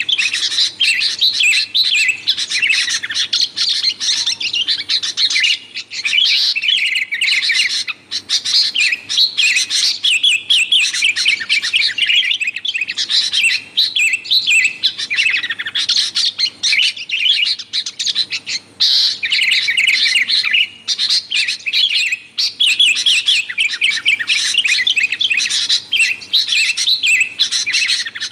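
Sooty-headed bulbuls (kutilang) chattering, a dense and busy run of quick overlapping chirps with only brief pauses.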